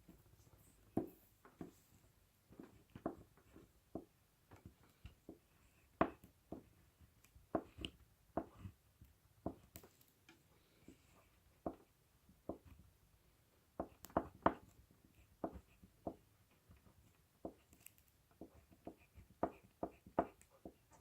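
Crayon drawing on paper: short, faint, irregular strokes and taps, one or two a second.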